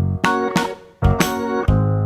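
Background music: a bright, bouncy children's tune on keyboard with a steady beat.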